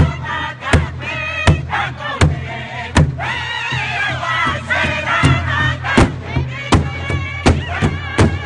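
Powwow drum group singing an intertribal song in many high, wavering voices, beating a large shared drum together in a steady beat.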